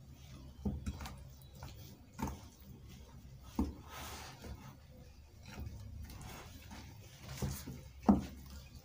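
Wooden spoon stirring thick flour-and-water puff puff batter in a glass bowl, with soft squishing and a few irregular knocks of the spoon against the bowl.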